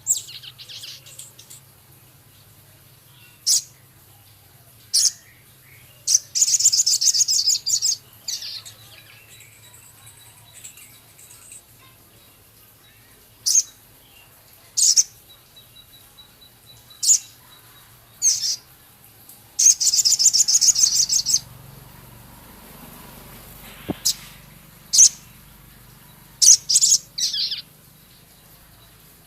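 Male sogon bird singing in sharp bursts: short high chirps and ticking notes scattered every second or two, with two longer rasping chatter runs, one about six seconds in and one about twenty seconds in.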